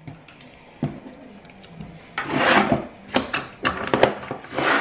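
Small items being handled and shifted in a desk drawer: a light knock about a second in, then two short rubbing, scraping swishes with a few small clicks between them.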